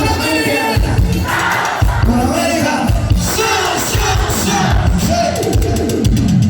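Live cumbia band playing, with sung vocals over a steady bass beat.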